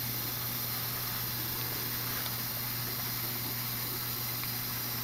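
Steady hiss with a low hum underneath, unchanging throughout, with no distinct event: background noise of the room and its equipment.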